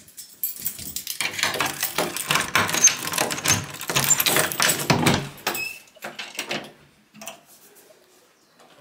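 A door being opened, with a run of knocks, clatter and rustling for about five seconds, then a few faint knocks as it dies away.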